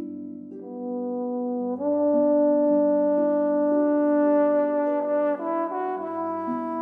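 Trombone playing a slow, smooth melody in a trombone and harp duet, rising in steps to one long held note of about three and a half seconds, then stepping down, over lower accompanying harp notes.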